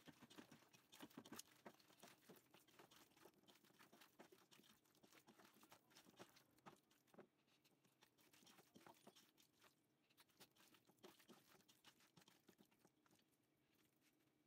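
Hand squeezing and mixing raw duck pieces with liver spread in a pot: faint, irregular wet squishing and crackling, over a faint steady hum.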